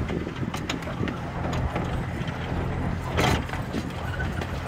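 Miniature railway train running along its track: irregular clicks and rattles from the wheels and carriages over a low steady hum from the small locomotive. A brief louder rush of noise comes about three seconds in.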